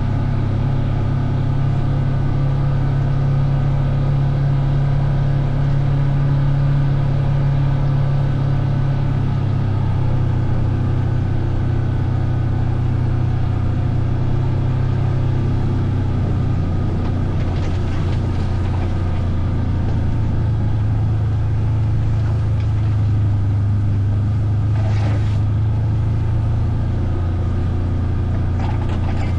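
A vehicle's engine running at a fairly steady speed while it is ridden along, its pitch shifting slightly. There are a few brief hissy noises in the second half.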